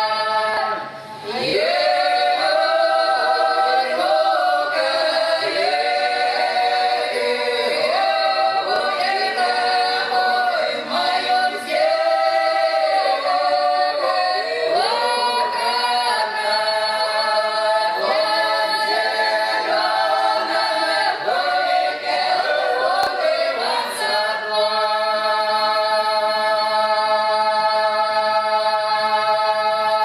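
Russian village folk ensemble, mostly women's voices, singing an a cappella south Russian drawn-out (protyazhnaya) song in several parts. The voices move together through a slow, ornamented melody with short breaks, then settle on a long held chord about twenty-four seconds in.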